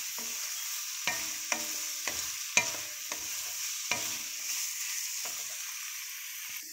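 Chorizo, pork belly and carrots sizzling in a metal wok while a wooden spoon stirs them. The spoon knocks and scrapes against the wok about seven times, the sharpest about two and a half seconds in.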